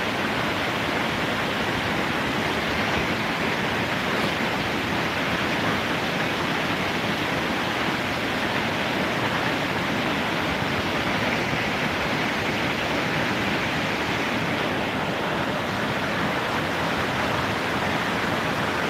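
Mountain river rushing over rocks in whitewater rapids: a steady, even rush of water.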